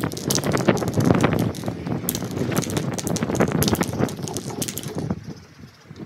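Aerosol can of black spray paint being shaken and sprayed: quick rattling clicks of the mixing ball over a hiss, with wind on the microphone, dying down about five seconds in.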